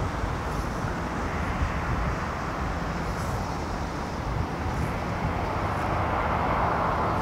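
Steady airport ambience: a low rumble of distant aircraft engine noise, swelling slightly near the end.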